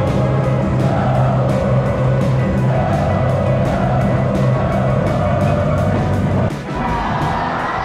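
Music with a steady beat over a sustained bass line; the bass drops out about six and a half seconds in.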